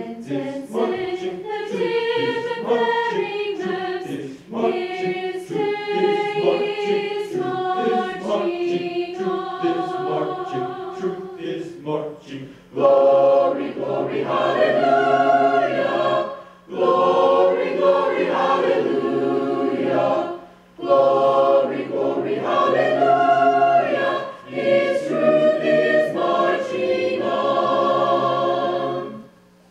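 High school honor choir singing in several voice parts, with short breaks between phrases. It grows louder and fuller about thirteen seconds in and stops just before the end.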